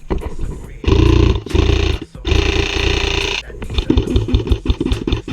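MK18 airsoft electric rifle firing three rapid full-auto bursts, with the gearbox buzzing through each. The longest burst lasts about a second. A run of short, quick cracks follows.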